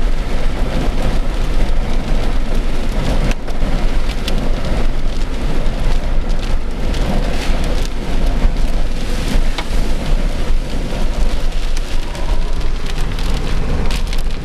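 Heavy rain hitting the car, heard from inside the cabin: a loud steady hiss of rain with many sharp drop hits on the body and glass.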